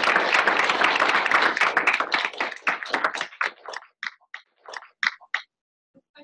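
Audience applauding: dense clapping that thins out into a handful of separate claps and stops about five seconds in.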